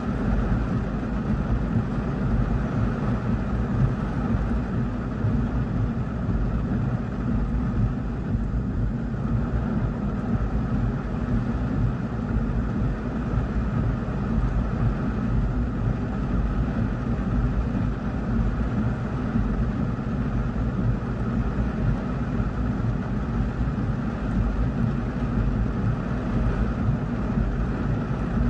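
Heavy rain falling on a car's roof and windshield, heard from inside the cabin as a steady, dense wash of noise, heaviest at the low end.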